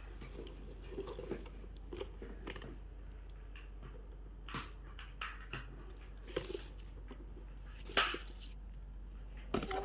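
Scattered crinkles, rustles and light clicks of a handbag and its packaging being handled, with one sharper click about eight seconds in.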